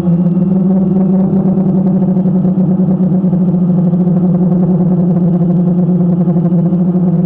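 Camera drone's motors and propellers humming steadily at one pitch as it hovers and turns slowly, picked up close by its own on-board camera.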